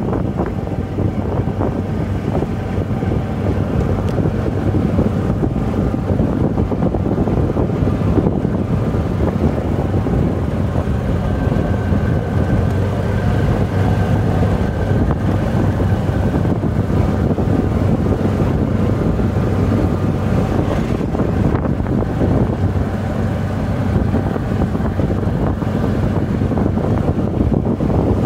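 Golf cart driving along an unpaved dirt road: steady motor and tyre noise, with wind buffeting the microphone.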